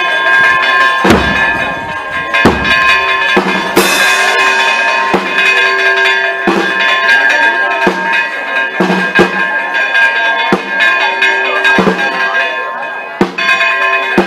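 Church bells pealing, struck about once or twice a second, each stroke ringing on. There are two deep low thumps about a second and two and a half seconds in.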